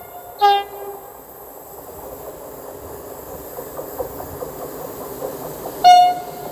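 Red Softrans electric multiple unit approaching on the curve. It gives a short horn toot about half a second in, its wheels rumble louder on the rails as it nears, and a second, louder horn toot sounds near the end.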